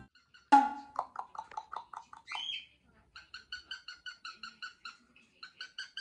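Cockatiel calling a rapid string of short, clipped 'kon-kon-kon' notes, about six a second, in two runs. This answers a lower-pitched run of similar pulsing notes that starts loudly about half a second in, and a brief higher chirp sits between them.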